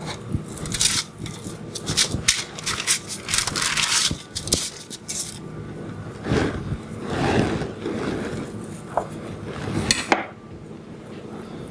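Kitchen prep handling: slices of crumbly frozen cheese dough rustled and scraped onto a parchment-lined metal baking sheet, then a chef's knife cutting and knocking on a wooden cutting board, with a few sharp knocks near the end.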